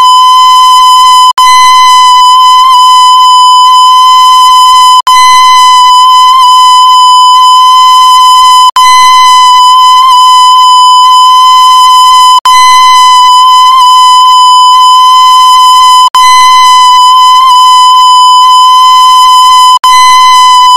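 Loud, steady, high-pitched electronic beep like a censor bleep or test tone, one unchanging pitch with a harsh, buzzy edge. It cuts out for an instant about every four seconds, as if the same clip were looped.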